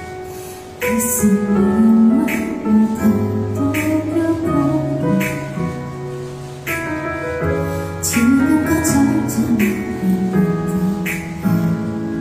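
A woman singing a slow, tender ballad live into a microphone over piano accompaniment, with a short break in the singing about halfway through.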